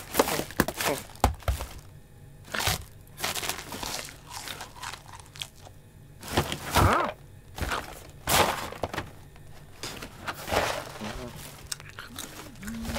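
Cat rummaging in a cardboard box of groceries: irregular rustling, crinkling and cracking of packaging and cardboard, in quick bursts. A few short cat-like voice noises come in among them, mostly in the second half.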